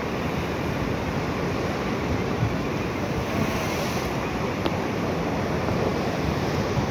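Ocean surf washing and breaking against a rock shelf, a steady rushing noise, with wind rumbling on the microphone.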